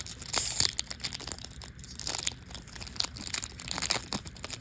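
Foil trading-card pack wrapper crinkling and tearing as it is opened, with a run of irregular crackles.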